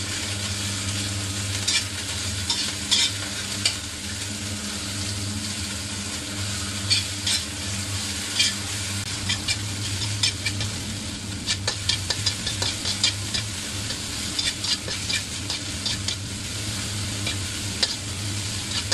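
Chopped chillies, shallots, garlic and shrimp paste sizzling in hot oil in a nonstick wok while a slotted spatula stirs them, knocking and scraping against the pan many times. A steady low hum runs underneath.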